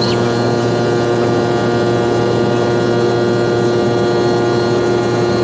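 Steady drone inside an airliner's cabin: constant engine and air noise with a low hum, unchanging in level.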